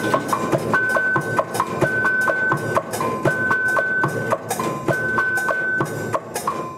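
A mechanical percussion machine, its rotating disc triggering percussion instruments in turn: a fast, even rhythm of knocks mixed with ringing pitched notes, repeating in a steady cycle.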